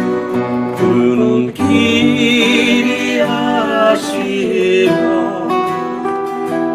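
Two acoustic guitars strummed together, with a man and a woman singing a duet over them; one long sung note wavers in a vibrato about a second and a half in.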